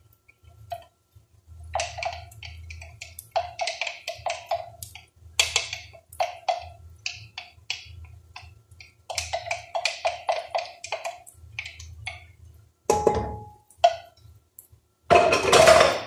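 A wooden spoon and other utensils knocking against a pot and cookware in quick runs of taps, with a single clang about thirteen seconds in and a louder, noisier clatter near the end. A low hum runs underneath.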